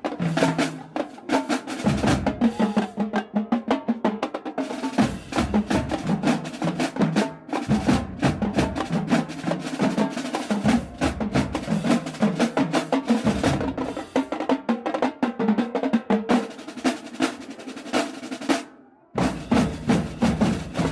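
Marching band drumline playing a cadence of rapid snare and bass drum strokes, stopping for a moment near the end and then starting again.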